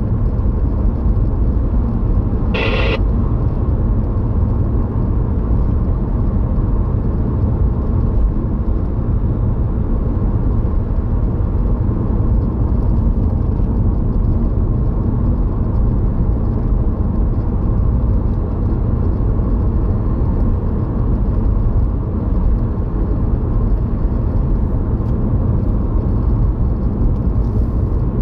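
Steady engine and road rumble heard inside a moving car. A brief hiss-like burst comes about three seconds in.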